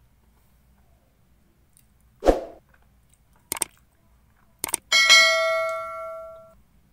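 Subscribe-button animation sound effect: a short sound about two seconds in, then two pairs of mouse clicks and a bell ding that rings on for about a second and a half.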